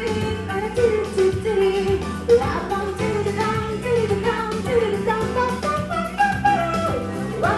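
Pop song in Russian sung live with band accompaniment, the wavering sung melody over a steady backing.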